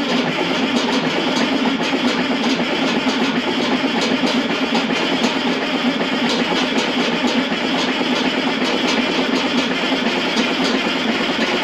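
John Deere 8630 tractor's turbocharged six-cylinder diesel running steadily just after a cold start, smoking white from the stack.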